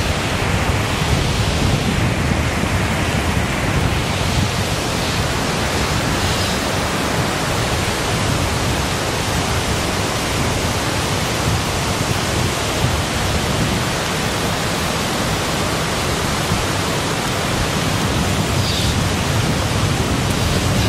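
Strong wind buffeting the microphone: a steady, loud rushing noise with a heavy low rumble.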